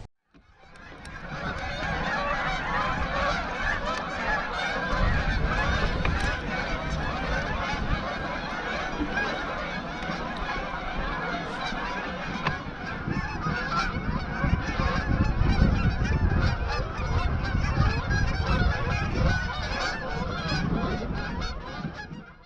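A large flock of geese honking continuously, many calls overlapping, with a low rumble underneath from about five seconds in.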